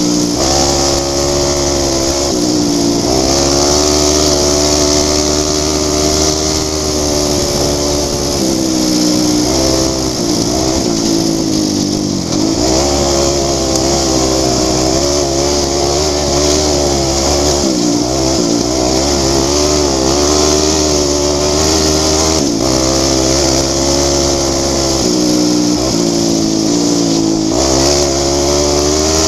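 Off-road racing engine running hard at speed, its pitch repeatedly rising and falling with throttle and gear changes, over a steady hiss.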